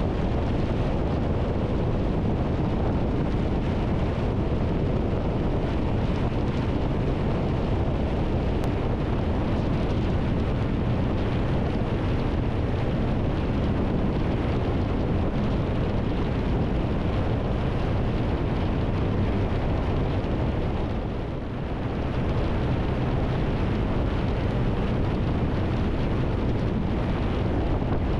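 Triumph Tiger 1200 motorcycle cruising at motorway speed: a steady rush of wind over the microphone with engine and tyre drone underneath, dipping briefly about three-quarters of the way through.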